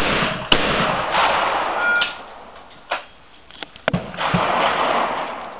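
Two shotgun shots about half a second apart at a clay target, each followed by a long, noisy echo lasting a couple of seconds. A few sharp clicks and another shot with a long echo come about four seconds in.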